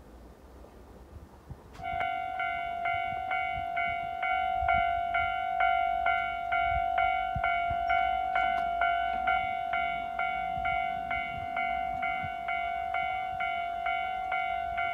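Railway level-crossing warning bell, an electronic ding struck about three times a second, which starts suddenly about two seconds in and keeps going: the crossing is warning that a train is approaching.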